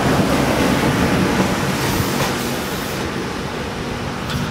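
CityRail K-set double-deck electric train pulling away, the running noise of its motors and wheels on the rails slowly fading as it moves off.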